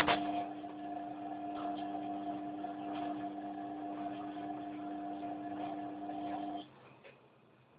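Washing machine running with a steady hum and faint ticks, then cutting off suddenly near the end; a sharp knock at the very start.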